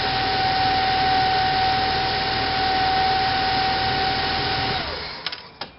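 Car engine running steadily with a steady whine, its battery bypassed and the alternator charging a supercapacitor bank; the sound dies away about five seconds in, followed by two short clicks.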